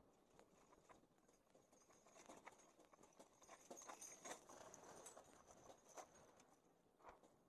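Near silence, with faint, irregular clicks and knocks throughout.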